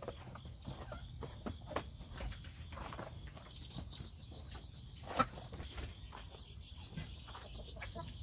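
A quiet chicken run: chickens moving about and pecking make scattered light taps and scratches, the sharpest about five seconds in. Faint high chirps come and go.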